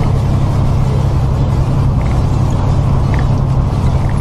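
Diesel semi-truck engine droning steadily with road noise, heard from inside the cab while cruising on the highway, with a few faint clicks.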